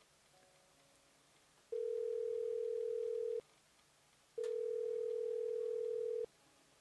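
Telephone ringback tone heard in the handset: two rings of a steady two-note hum, each lasting a little under two seconds, with a short silence between, the line ringing at the other end while the caller waits for an answer.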